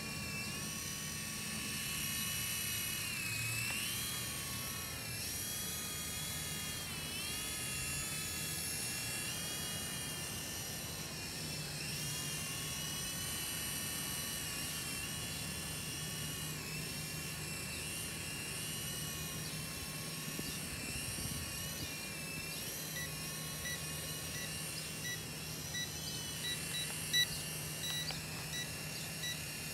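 UDI/RC U12S electric micro RC helicopter in flight, its motors and rotors whining steadily, the pitch rising and falling as the throttle changes. In the last few seconds a row of short, regularly spaced beeps sounds over it, with one brief sharp click.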